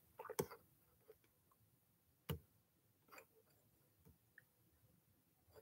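Near silence broken by a few faint, irregularly spaced clicks and light taps, the clearest about two seconds in.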